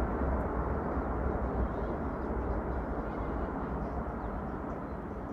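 Airbus A330 jet engine noise, a steady rumble that slowly fades as the airliner moves away.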